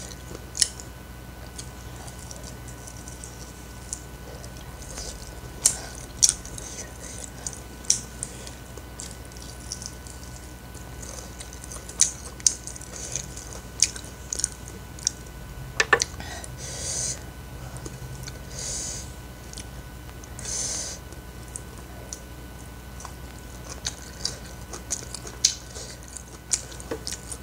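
Close-up mouth sounds of someone eating fried chicken and rice by hand: chewing and biting, with many short sharp mouth clicks and smacks scattered throughout.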